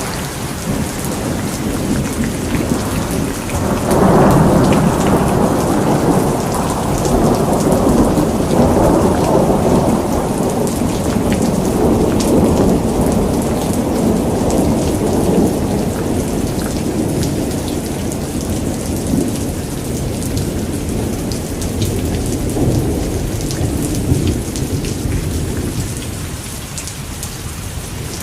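Steady rain with a low rolling rumble of thunder that swells about four seconds in and slowly dies away, over the fine patter of drops.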